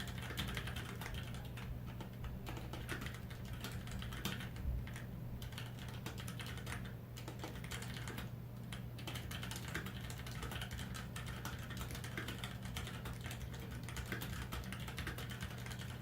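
Fast continuous typing on a mechanical keyboard with stock Kailh Pro Purple tactile switches: a dense patter of keystrokes and bottom-outs with a few short pauses, over a steady low hum.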